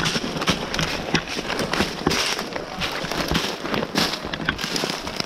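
Quick, irregular footsteps crunching through dry leaves and brush.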